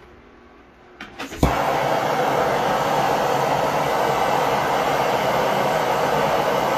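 Handheld gas torch on a yellow fuel cylinder being lit: a few sharp clicks about a second in, then it catches and burns with a loud, steady hiss while heating a steel rod for bending.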